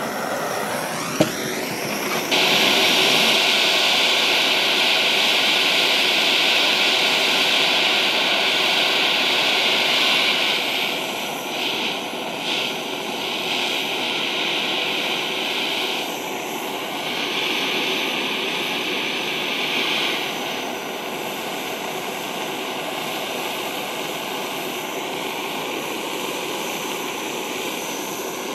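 Handheld gas blowtorch flame burning steadily while heating an aluminium rotor and axle for brazing. A single sharp click comes about a second in, then the flame grows louder about two seconds in and holds, easing slightly after ten seconds and again around twenty.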